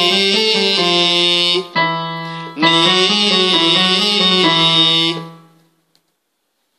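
Male voice singing a short stepwise scale on the syllable "nee" with vibrato over a held piano note, in two phrases, the second ending about five seconds in.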